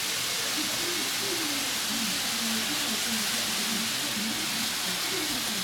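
Steady rolling hiss of model electric trains running on a layout's track, with faint indistinct voices underneath.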